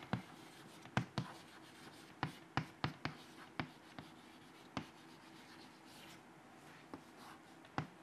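Chalk writing on a chalkboard: a quiet string of sharp, irregular taps and clicks as each stroke lands, over a faint scratching of chalk on the board.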